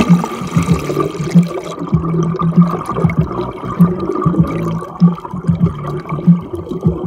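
Muffled water sloshing and bubbling heard from a camera held underwater beside a kayak. Kayak paddle blades pull through the water, with a surge about every 1.2 seconds.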